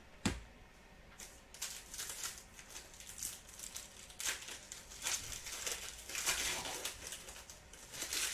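Trading cards and their packaging being handled: crinkling and rustling, with a sharp tap just after the start.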